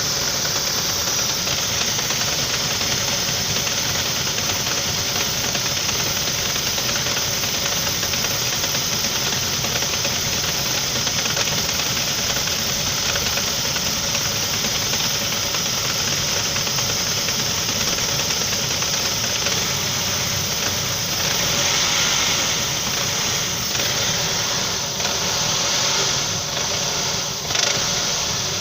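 Saab 9-5 engine running with a knock, a fault that appeared after revving through deep water threw the drive belt. The running is steady, with a few sharper knocks and changes in level in the last several seconds.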